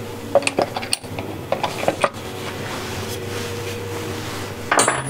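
Wood lathe running with a steady hum, and a run of light metallic clinks and taps in the first two seconds and again near the end.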